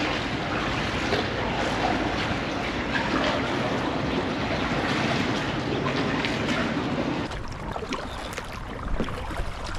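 Water sloshing around a kayak on a river, with wind on the microphone; the noise drops quieter about seven seconds in.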